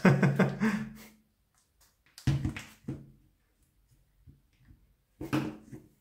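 Three short bursts of a man's voice, wordless mouth sounds or muttering, the second starting with a sharp click.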